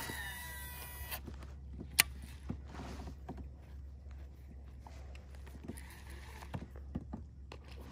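Baitcasting fishing reel in use: a falling whir for about the first second, a sharp click about two seconds in, then faint scattered clicks as the reel is handled, over a low steady hum.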